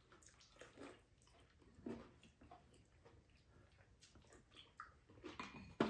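Faint eating sounds at a meal: chewing, with light clicks of spoons and chopsticks against bowls and the pan.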